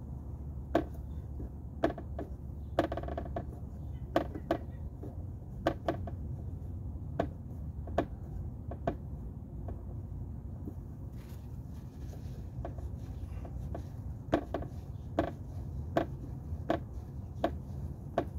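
Sharp, irregular clicks and taps of hand tools and metal parts being handled at an outboard's gearcase as the lower drain plug is refitted after a gear-oil fill. The clicks come roughly every half second to second and a half over a steady low rumble.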